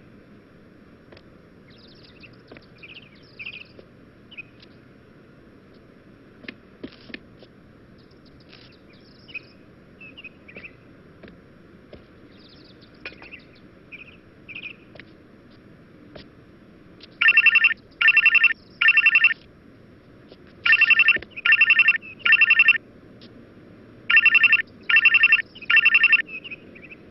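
Telephone ringtone: loud short rings in groups of three, repeating every few seconds from about two-thirds of the way in. Before that there is only faint low background noise with a few faint chirps.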